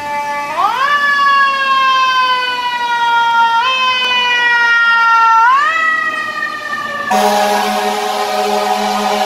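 Fire engine siren rising quickly in pitch and then winding slowly down, with a short lift partway through and a second quick rise. About seven seconds in, it gives way abruptly to a loud, steady air horn blast.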